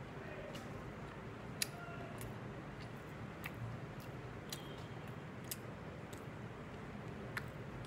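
Eating by hand from a plate of khichuri: scattered light, sharp clicks and ticks from fingers working the rice on the plate and from chewing, the loudest one a little over a second and a half in, over a steady background hiss.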